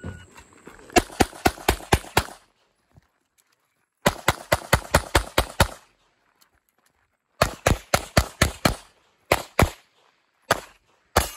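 Glock 48 9mm pistol fired in fast strings of about six to eight shots, with pauses of one to two seconds between strings and a few single and paired shots near the end. A shot timer's high beep starts it off.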